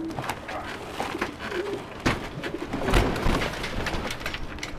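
Pigeons cooing, mixed with knocks and clattering, the loudest thump about three seconds in.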